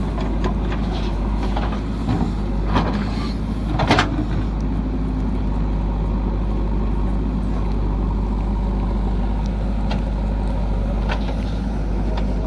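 Diesel engine of a backhoe loader running steadily under work, with a few short sharp knocks about two, three and four seconds in.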